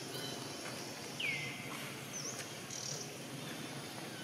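Bird and insect ambience: about a second in, a bird gives a clear whistled call that falls in pitch and then holds briefly, followed by a short chirp, with high insect buzzing over a steady background hiss.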